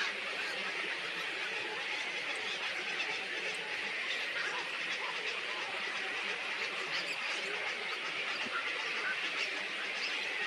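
A steady, dense chorus of many small birds chattering and chirping together.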